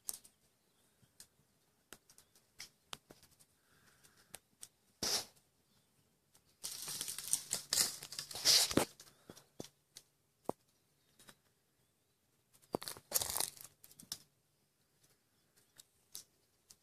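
Dry brush, twigs and leaves rustling and crackling in three bursts, about five seconds in, from seven to nine seconds, and around thirteen seconds. Scattered small snaps and clicks fall between them.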